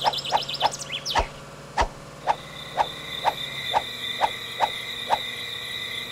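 Night-time nature sound effect: a string of short animal calls repeating about three times a second, then spacing out, with a steady high trill joining about two seconds in. Two low thuds sound early on.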